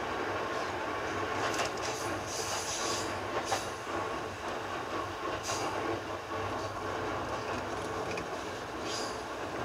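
A JR East E233/E231-series electric commuter train running, heard from inside the leading car: steady running noise with rail clicks. Brief high-pitched wheel squeals come several times, strongest about two and a half seconds in and again near the end.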